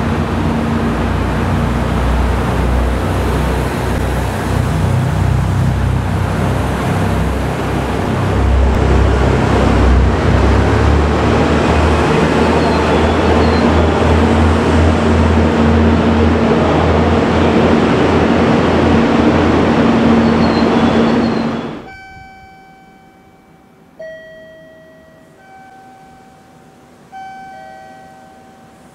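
JR Kyushu KiHa 200 series diesel railcar running at a platform and pulling away, its engine and wheels making a loud steady rumble that grows louder about a third of the way in. It cuts off suddenly about two-thirds of the way through, leaving a quieter background where a series of clear electronic chime notes at changing pitches play a short tune.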